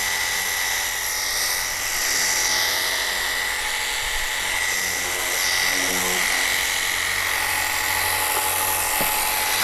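Wosai MX-001 battery high-pressure washer running, its motor-driven pump giving a steady high whine over the hiss of the water jet, spraying through the more powerful jet nozzle.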